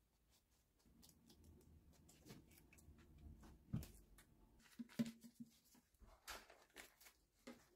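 Near silence with faint soft taps and rustling as a pastry brush dabs egg wash onto phyllo pastry and hands handle the baking paper. A slightly louder tap comes about four seconds in and a brief low tone about a second later.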